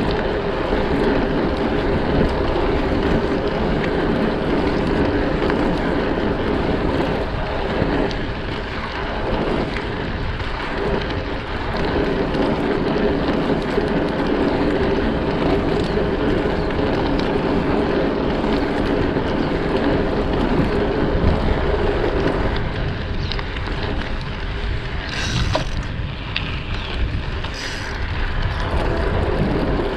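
Dirt jump bike riding steadily along a paved promenade: tyres rolling with wind rushing over the microphone. Near the end come two brief high hissing sounds.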